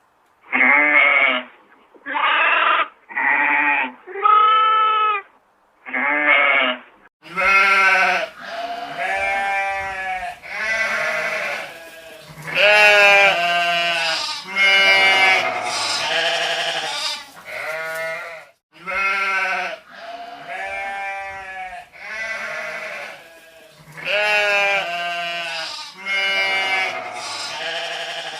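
Sheep bleating. First come five short, separate bleats about a second apart, one of them lower than the rest. About seven seconds in, a denser run of overlapping bleats at different pitches begins and keeps going.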